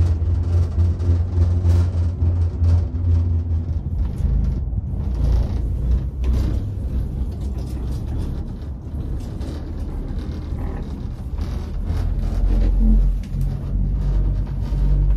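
Low rumble inside a moving cableway gondola cabin. It starts as a steady low hum and turns into a deeper, rougher rumble about four seconds in, swelling again near the end.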